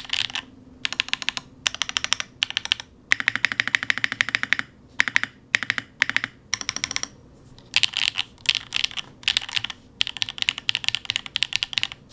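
Mechanical keyboard typing on Sillyworks x Gateron Type R tactile switches in a TKD PT75 with an aluminium plate and Keykobo keycaps. Quick runs of keystrokes are broken by short pauses, with one longer fast run a few seconds in.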